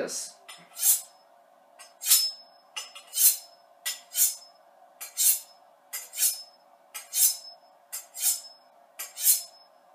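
Chef's knife blade drawn along a sharpening steel, about one stroke a second, nine strokes in all. Each stroke is a short metallic scrape with a thin ring.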